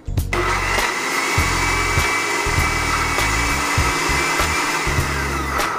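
Countertop glass-jar blender running, chopping onions, scotch bonnet pepper and water into a seasoning paste: a loud, steady motor whir with a thin whine that starts a moment in, drops in pitch just before it stops near the end.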